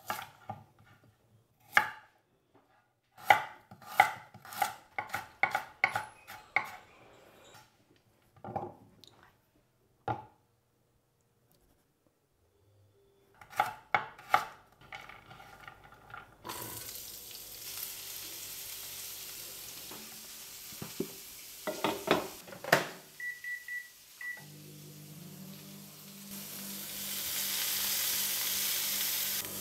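Chef's knife chopping a carrot into strips on a bamboo cutting board, in quick runs of knocks about three a second with pauses between. Later a few clatters of a pan, short high beeps and a low hum from an induction hob, and carrot strips sizzling in a frying pan as they are stirred with chopsticks, growing louder near the end.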